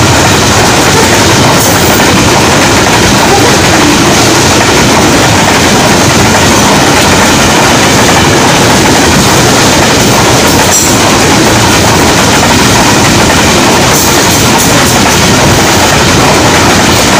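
A freight train's covered goods wagons running past close by on the rails, loud and steady, with a few sharp clacks from the wheels.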